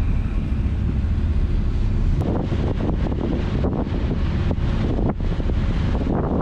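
Wind buffeting the microphone on the deck of a moving river ship, loud and steady over a low rumble, swelling in gusts after about two seconds.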